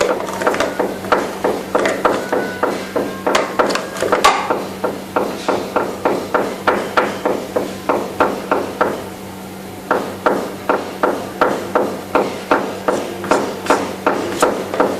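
Repeated hammer blows, about three a second, steady and even, with a short pause about eight and a half seconds in. This is from renovation work next door.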